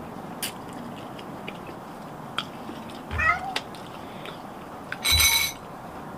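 A cat meowing twice: a short call about three seconds in, then a louder, harsher one about five seconds in. A few light clicks are heard between them.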